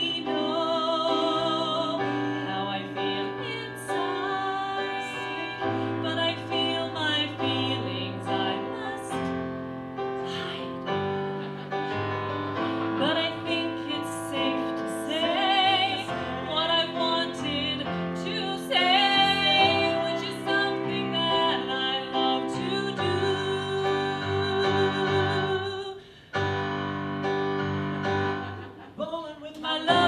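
A woman singing a song with wavering held notes, accompanied by a keyboard.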